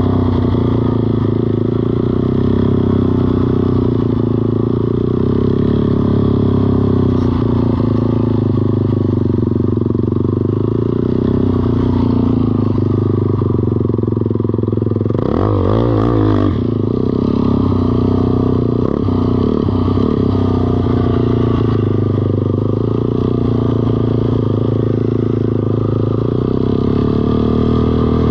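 ATV engine running steadily while the quad is ridden. About halfway through, the pitch rises and falls quickly.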